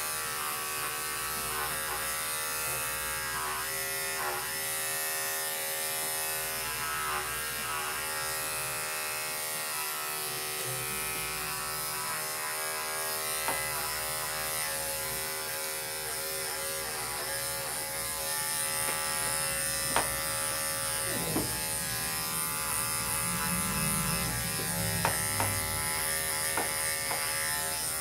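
Corded electric dog clippers running steadily as they shave a dog's coat, their buzz wavering in pitch now and then as the blade works through the hair. A few sharp clicks come in the later part.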